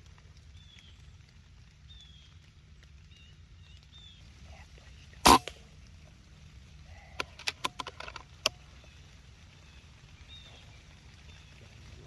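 An air rifle fires once, sharply, about five seconds in, followed a couple of seconds later by a quick run of sharp clicks and taps. Small birds chirp over a low steady rumble.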